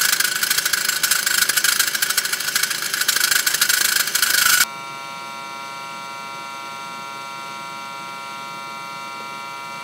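Pillar drill running as its bit cuts holes into a turned mild-steel bearing housing. About four and a half seconds in it cuts off abruptly and a quieter steady electrical hum takes over.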